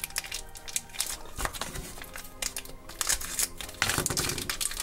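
Small clear plastic bag crinkling in a stream of irregular crackles as fingers pull it open to get a tiny toy doll out, with soft background music underneath.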